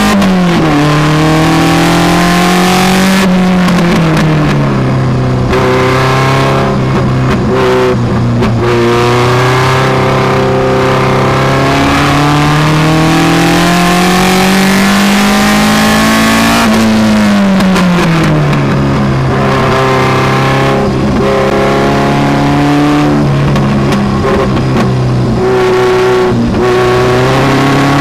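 Engine of a Seven-style open-cockpit sports car under hard acceleration on track, its note climbing slowly in a high gear along a straight. A little past halfway the pitch falls sharply as the driver lifts and brakes, then the engine runs steadier and lower through the following corners, with wind rushing over the open cockpit.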